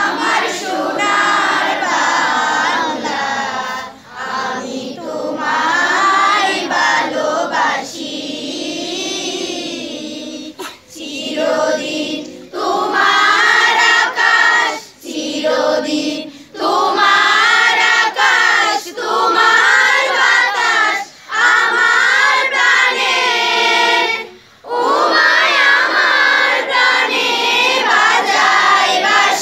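A group of schoolchildren, mostly girls, singing a song together as a choir, in long phrases broken by short pauses for breath.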